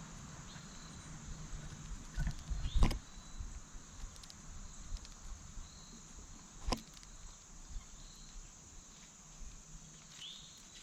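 Steady high-pitched insect chorus, broken by a few sharp knocks, the loudest about three and seven seconds in, and two or three short high chirps that drop in pitch.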